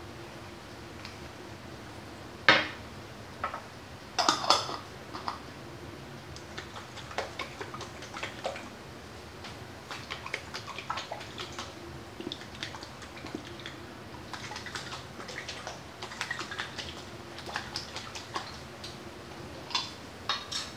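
Small glass jar and its lid handled on a countertop: a sharp knock about two and a half seconds in, a cluster of clinks a little later, then a run of light taps and clinks.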